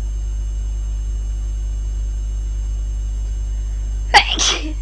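A person's sneeze, deliberately induced while allergies are acting up. It comes as one sudden, loud, sharp burst near the end, over a steady low hum.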